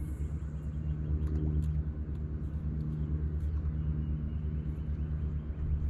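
Bow-mounted electric trolling motor on a bass boat running steadily, a low even hum, with a few faint clicks over it.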